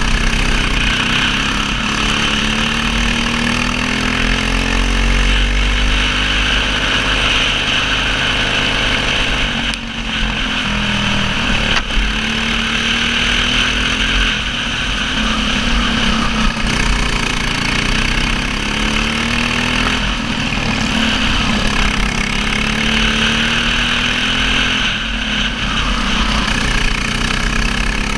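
Racing kart engine at full throttle in a race, its carburettor fitted with a restrictor slide. The note climbs in pitch along each straight and drops off into each corner, over and over, with a brief dip about ten seconds in.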